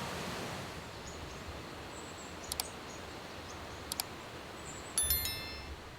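A chime ringing about five seconds in, several high tones at once, over a steady soft hiss, with two light ticks before it.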